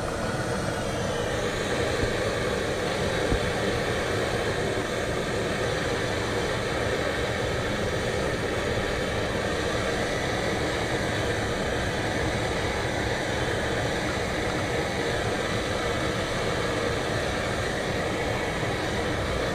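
BRS 3000T titanium canister stove burning on high with a steady hiss, under a lidded aluminium pot of water at a hard rolling boil.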